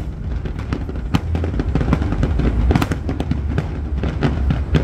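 Fireworks display: many rapid, overlapping bangs and booms of aerial shells over a continuous deep rumble.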